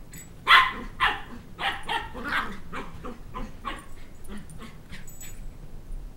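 Two-month-old Sheltie puppy giving play barks, a string of about a dozen short barks about two a second. The first two are loudest and the rest fade until they stop about five and a half seconds in.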